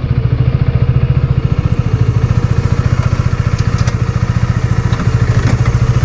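Motorcycle engine idling with a fast, even throb.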